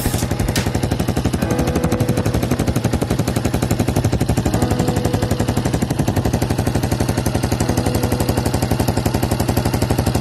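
Honda Super Cub 110 (JA07) single-cylinder four-stroke engine running steadily at idle: a loud, fast, even run of exhaust pulses.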